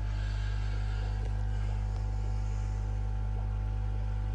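Steady low electrical hum of running aquarium equipment, with a faint hiss above it.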